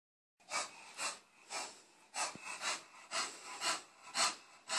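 Bulldog breathing heavily through its short snout: rhythmic noisy huffs, about two a second.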